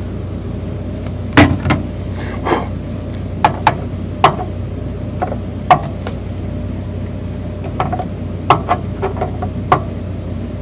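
Wire cutters snipping excess component leads on the solder side of a circuit board: a series of sharp snips at irregular intervals, over a steady low hum.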